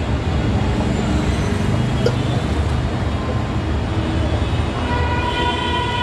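Steady roadside traffic noise, a continuous low rumble of passing vehicles, with a single short click about two seconds in and a held pitched tone starting near the end.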